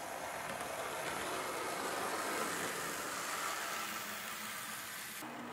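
Model diesel railcar running past on layout track. The motor and wheels make a noisy whir with a faint whine that grows louder and then fades as it goes by. The sound breaks off suddenly near the end.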